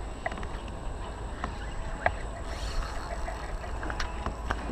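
Steady low wind rumble on the microphone, with several short light clicks and knocks from handling the rod and reel in a plastic kayak, and a brief hiss near the middle.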